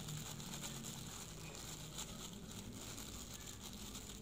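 Thin plastic takeaway bag crinkling and rustling in irregular little crackles as chicken noodles are shaken out of it onto a plate.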